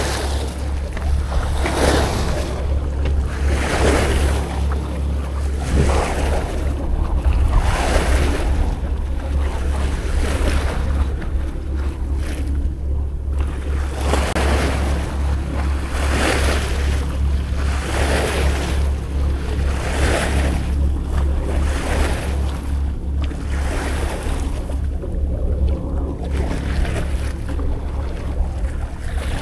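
Small waves washing and splashing against a rock seawall, surging every couple of seconds, over a steady low rumble of wind on the microphone.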